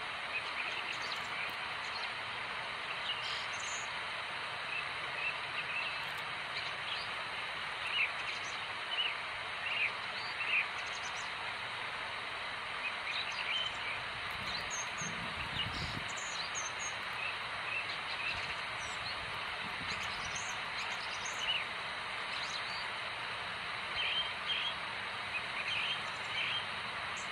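Outdoor ambience: a steady background hiss with small birds chirping in short, scattered calls, bunched around eight to ten seconds in and again near the end. A brief low rumble comes about halfway through.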